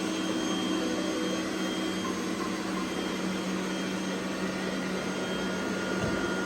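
Robot vacuum cleaners running on carpet: a steady whir with a constant low hum.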